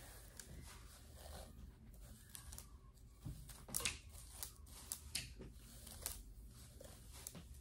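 Hairbrush pulled through wet, tangled hair: faint rasping strokes, a few sharper ones in the second half.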